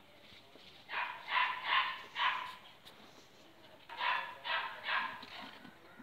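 A dog barking in two runs of three or four barks, the first about a second in and the second about four seconds in.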